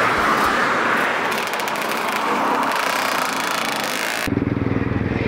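Motorcycle engines heard across an open road as a steady rushing noise, without a clear single engine note. About four seconds in it cuts abruptly to a motorcycle engine idling close by, low and even.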